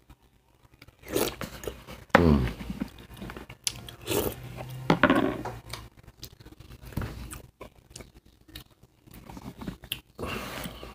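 A man chewing and eating boiled oxtail close to the microphone, with a spoon working in a plastic bowl. Twice a short hummed 'mmm' of enjoyment stands out, about two seconds in and again about five seconds in.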